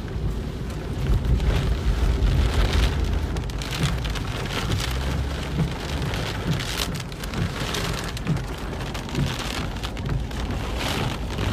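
Heavy rain pelting the roof and windshield of a moving car, heard from inside the cabin: a dense, continuous patter of drops over a steady low rumble.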